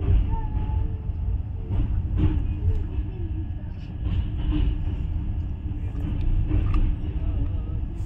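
Moving passenger train, the 15383 Sikkim Mahananda Express, heard from its coach: a steady low rumble of wheels on rail as it crosses a steel truss bridge, with a few knocks along the way.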